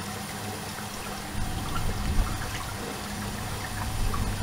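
Water from a garden hose running steadily into a trough as it fills.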